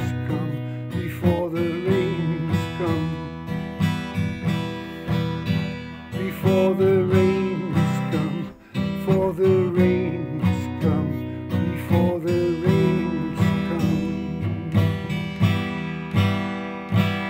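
Steel-string acoustic guitar strummed in a steady rhythm, about two strums a second, as the song's instrumental ending. There is a brief break about eight and a half seconds in, and a last strum near the end is left to ring.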